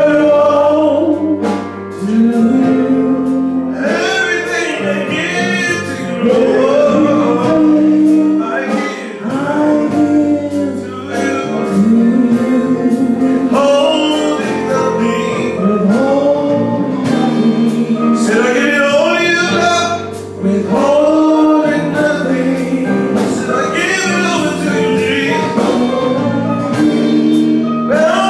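Live gospel worship song: a man singing lead in phrases of a few seconds over sustained keyboard chords, with sharp percussion taps throughout.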